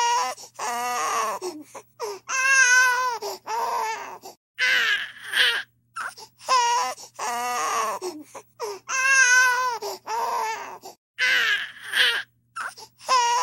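Infant crying: a string of high wails and short gasping cries, broken by brief silent gaps, with the same sequence repeating about every six and a half seconds.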